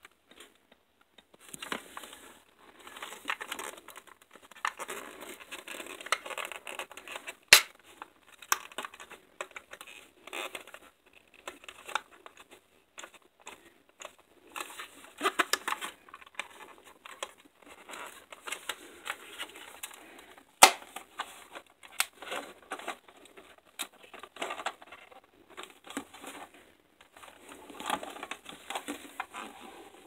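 A plastic VisionVR headset being handled: rubbing, rustling and scraping of plastic with many small clicks, and two much louder sharp snaps, about seven seconds in and again about twenty seconds in.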